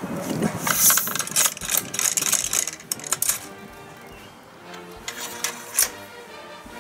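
Quick clicks and rustles from handling loading gear at a black-powder muzzle-loading rifle, then background music with held notes comes in about three seconds in.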